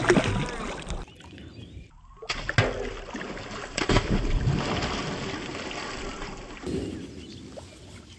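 Shallow river water splashing in repeated bursts as a large fish thrashes at the surface and a boy dives into the water to grab it, with a brief lull about a second in.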